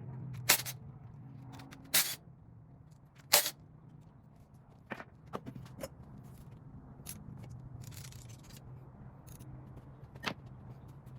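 Metal parts and tools clinking and knocking on a Ford 302 Windsor V8 block as a stuck main bearing is worked on. The sharp knocks are irregular and loudest in the first few seconds, with a low steady hum underneath.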